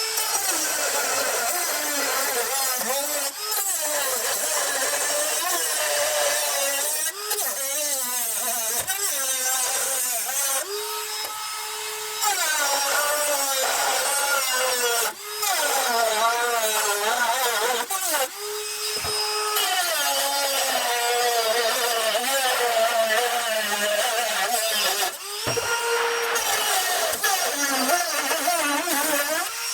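Handheld power cutting tool cutting into the sheet-metal hood hinge mount, its motor pitch dipping and wavering under load and recovering when it eases off, with a few brief pauses.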